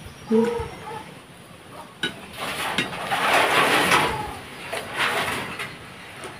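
Eating sounds close to the microphone: fingers working rice on a china plate and chewing, with a louder rustling, crackly stretch in the middle. A short hummed tone comes about half a second in.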